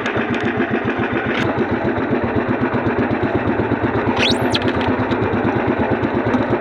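Small boat engine running steadily with an even pulse, with a brief high rising squeal about four seconds in.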